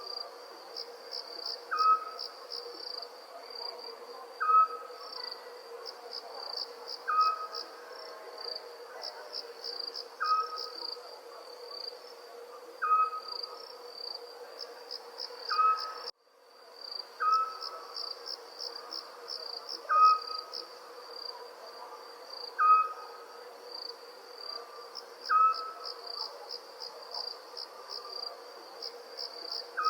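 Night ambience of crickets chirping in steady pulsing trills, with a short call from another night creature repeating about every two and a half seconds. Everything drops out for a moment about halfway through, then resumes.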